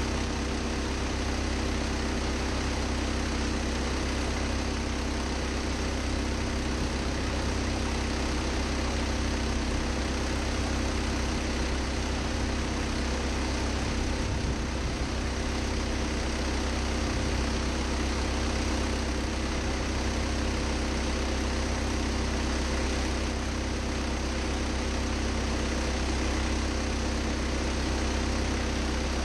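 A motor-driven machine running steadily at one constant speed: a low, unchanging hum with a few held tones above it.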